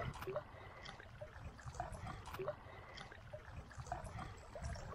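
Faint lapping and small splashes of river water as a hooked small fish skitters across the surface, drawn in on the line, with scattered soft ticks over a low rumble.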